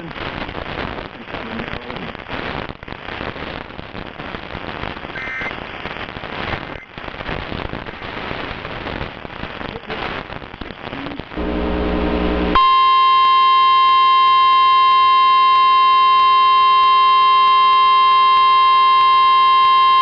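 Crackling radio static for about eleven seconds. A short buzz follows, then a loud, steady single-pitched alert tone with a buzzy edge: the NOAA Weather Radio 1050 Hz warning alarm that announces a new warning broadcast.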